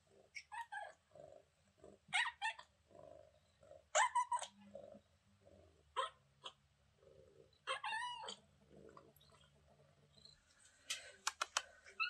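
Young kitten making short, high chirping calls, the 'beeping' sounds she makes, roughly every two seconds and often in quick pairs. A quick run of sharp clicks comes near the end.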